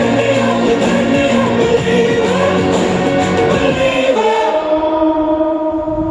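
Pop song with sung, choir-like vocals playing through a Sony SRS-XB10 Bluetooth speaker. About four and a half seconds in the drums and high end drop out, leaving held chords.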